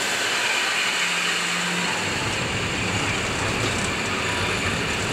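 Passenger coaches of an arriving train rolling slowly past along the platform: a steady noise of wheels on rails with a strong hiss. About two seconds in, a lower rumble joins.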